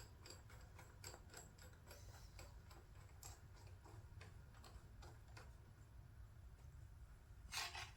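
Faint, irregular metallic clicking of a nut being spun by hand onto a threaded clamp stud, thinning out after about five seconds, then a louder metallic clank near the end.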